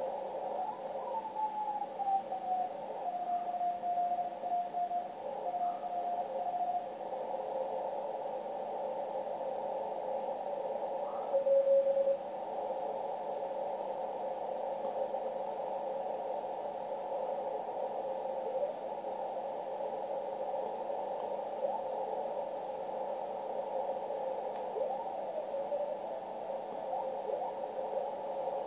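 Receiver audio from a Yaesu FTdx1200 HF transceiver tuned across the 40 m CW band through a narrow CW filter: steady band hiss with Morse code tones sliding in pitch as the dial is turned. A keyed Morse signal sounds for several seconds near the start, and a brief louder tone comes about eleven seconds in.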